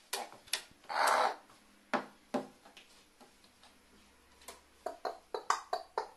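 Pet crow giving a string of short, throaty "wa-wa" calls while raising and flapping its wings. There are a few single calls early, a longer rasping one about a second in, and a quick run of calls near the end.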